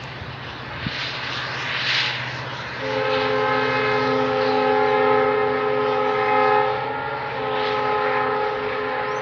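Multi-tone horn of a WDP4D diesel locomotive sounding a long blast of about four seconds, then a second blast of about two seconds after a brief break, over the low steady hum of the passing train.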